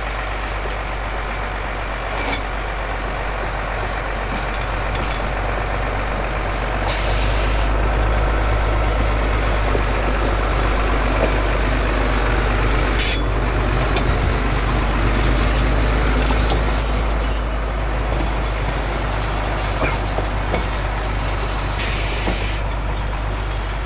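1924 Baldwin steam locomotive working past with a steady hiss of steam over a low rumble, growing louder about seven seconds in and easing off later. There are a few short, sharp hisses.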